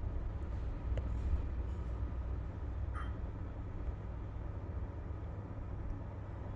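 Steady low background hum, with a faint click about a second in and a brief high chirp about three seconds in.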